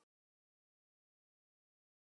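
Complete silence: no sound at all.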